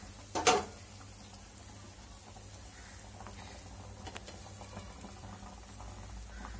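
Water boiling in a non-stick frying pan with raw banana pieces in it, a faint steady bubbling with a few small ticks over a low hum. A brief sharp sound comes about half a second in.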